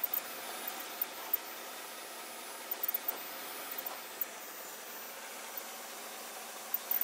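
2014 GMC Sierra 1500 engine running steadily under short electronic chirps that come singly and in quick little clusters several times: the chirping the truck makes when the accelerator is pressed.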